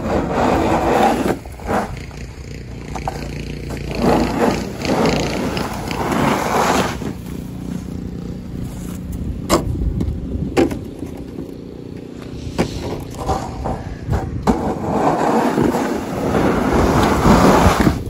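Wide snow-pusher shovel blade scraping along a paved driveway and shoving snow, in repeated long pushes with a few sharp knocks of the blade.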